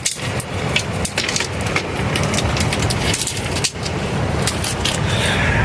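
Campfire crackling with many sharp pops, over a steady low rushing noise.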